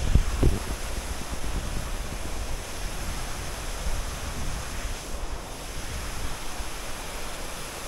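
Steady rush of a waterfall running low on water, with wind buffeting the microphone briefly at the start.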